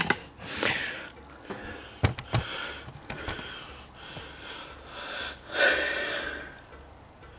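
A person breathing close to the microphone, with one louder breath about two thirds of the way in. A few sharp clicks and knocks come from the phone being handled and moved in close.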